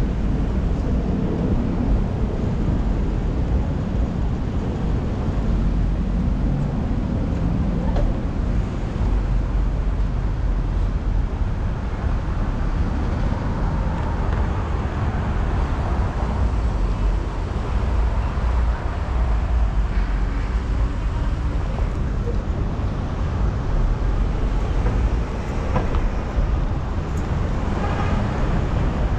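City street traffic heard while riding among cars: a steady low rumble of vehicles with no single sound standing out.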